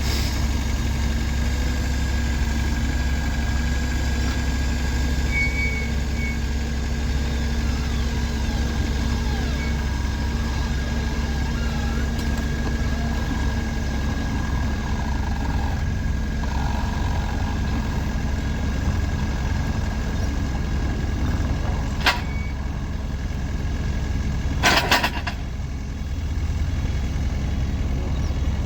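Heavy truck driving, a steady engine and road rumble. Two short clicks or knocks cut through it late on.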